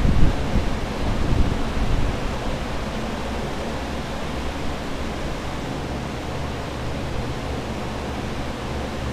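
Several water-damage drying fans (air movers) and dehumidifiers running together, giving a steady rush of blowing air. Heavier low rumbling comes and goes in the first two seconds.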